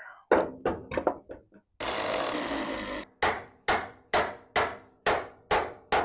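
Sharp metal-on-metal hammer blows on a car door hinge: a quick flurry of six strikes, then steady strikes about two a second. Between them a pneumatic air ratchet runs for about a second.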